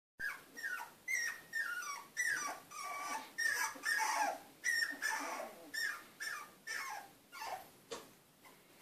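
High-pitched puppy whimpering: short cries, each falling in pitch, come about two or three a second and fade near the end.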